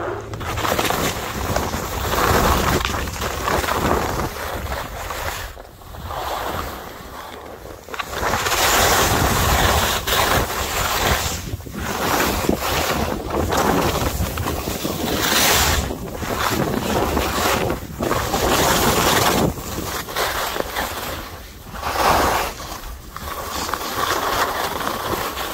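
Skis sliding and scraping over snow with wind rushing over the microphone, a loud noise that swells and fades every few seconds.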